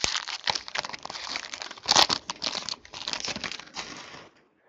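Crinkling and rustling of trading cards and their plastic packaging being handled: a busy run of small crackles that dies away shortly before the end.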